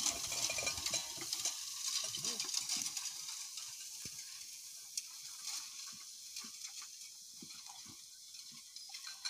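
Horse-drawn hay rake working dry hay: a crackling rustle of the hay with scattered clicks from the rake's tines and fittings, growing fainter as the horses pull it away.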